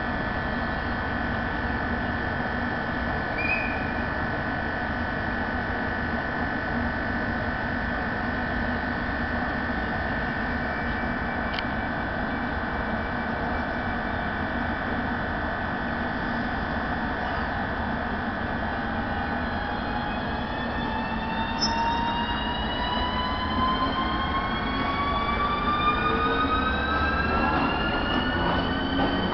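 Electric passenger train with a ZSSK class 381 locomotive: a steady electrical whine while it stands. About twenty seconds in, it is followed by several tones rising together in pitch as the traction drive accelerates the train away.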